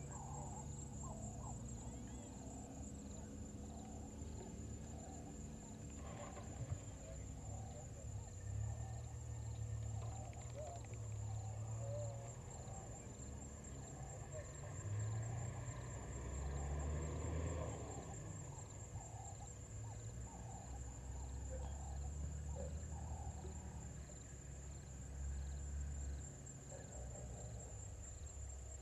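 Bush ambience: a steady high-pitched insect trill, with scattered short faint calls over a low, uneven rumble.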